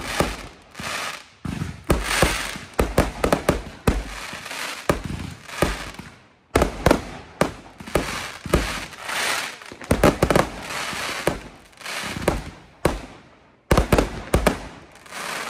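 Fireworks going off in rapid succession: sharp bangs overlapping with crackling. There are brief lulls about six seconds in and again near the end.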